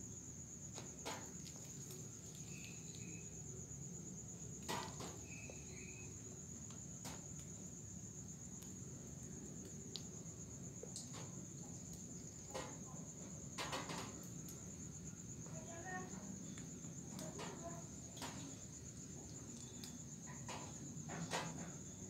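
Crickets trilling, one unbroken high-pitched trill over a low background hum, with a few soft clicks and knocks, the loudest about five seconds in and near the end.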